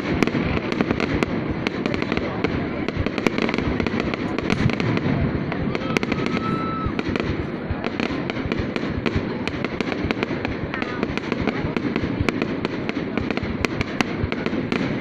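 Fireworks going off in a dense, continuous rattle of many overlapping bangs and crackles, with no break.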